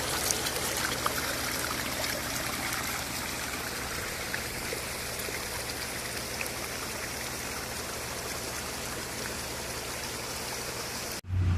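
Steady rushing of flowing water, like a mountain stream or rain runoff, with small splashes through it. It cuts off suddenly near the end, and a low rumble like wind on the microphone follows.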